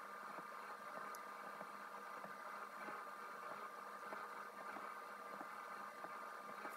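Steady hiss and faint hum of room tone, with scattered faint light ticks.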